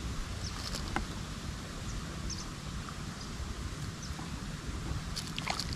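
Outdoor ambience: a low steady rumble, with scattered short high chirps of birds. A few light clicks come from handling the hook and line, about a second in and again near the end.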